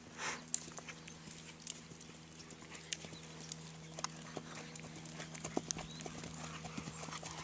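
Horse cantering on a dirt arena: uneven hoofbeats, growing louder as it comes closer, over a steady low hum.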